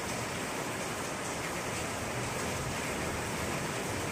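Heavy downpour: rain falling in a steady, even hiss onto paving and plant leaves.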